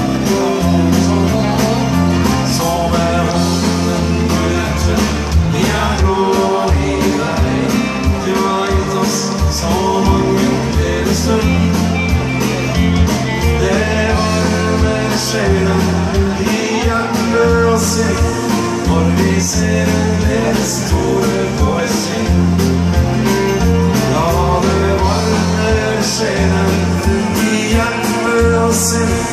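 A dansband playing a song live on a stage sound system: electric and acoustic guitars, bass guitar and a steady drum beat, with singing.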